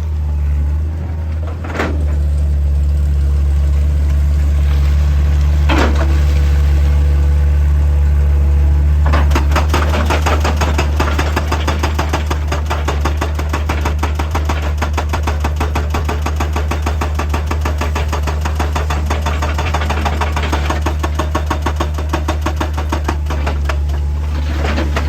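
Heavy diesel excavator engine running steadily with a deep hum. About nine seconds in, a fast, evenly repeating clatter joins it and carries on.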